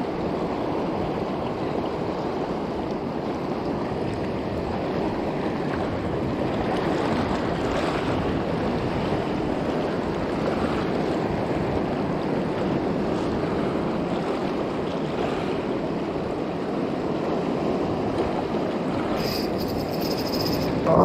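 Seawater washing and churning over shore rocks, a steady surf noise.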